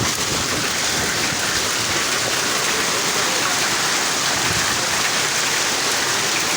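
Heavy rain falling steadily, a dense even patter of drops on surfaces.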